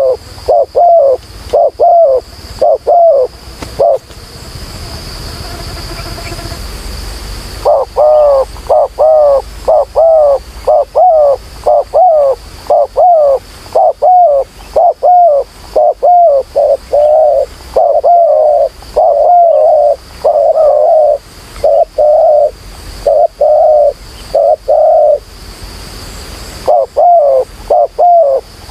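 Spotted doves cooing loudly and repeatedly, about two coos a second, with a pause of several seconds about four seconds in and a shorter pause near the end.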